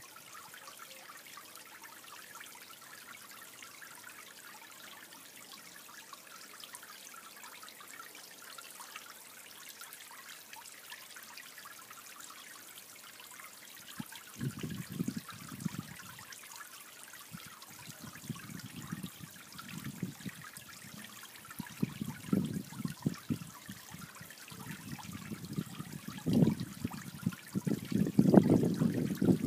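Pond water trickling steadily and faintly. From about halfway there are irregular bouts of low rumble, which grow louder and more frequent near the end.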